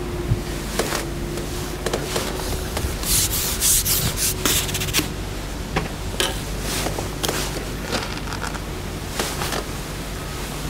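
Irregular rubbing and scraping noises close to the microphone, thickest a little before the middle, over a faint steady low hum.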